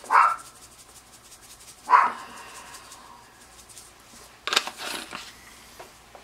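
Dried herb seasoning shaken from a plastic shaker jar over food in a slow cooker, with a dry rattle about four and a half seconds in. A dog gives two short barks, at the start and about two seconds in, the second the loudest sound.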